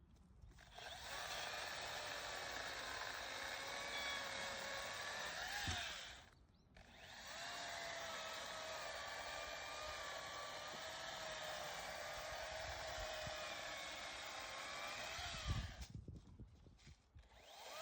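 Makita electric chainsaw running in two bursts: a steady high motor whine with the chain spinning, pitch wavering slightly, cutting out for about a second in between and stopping near the end. A low thump comes just as the second run stops.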